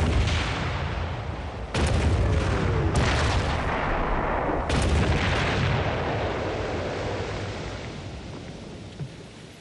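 Four heavy blasts, like artillery fire: one at the start, one just under two seconds in, one at three seconds and one near five seconds. Each sharp crack is followed by a long rolling rumble, and the rumble dies away over the last few seconds.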